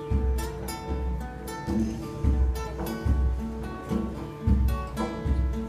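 Instrumental background music: plucked notes over a steady low beat.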